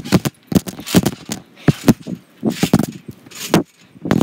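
Trampoline in use, giving irregular thumps and jangling rattles a few times a second from the mat and springs, mixed with knocks of the phone being moved about.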